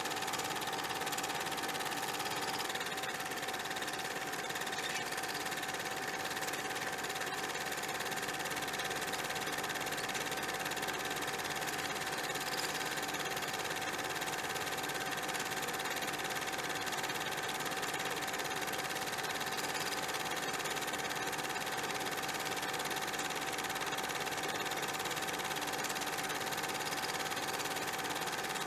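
A steady mechanical whirr: a constant hum with a hiss over it, unchanging in level.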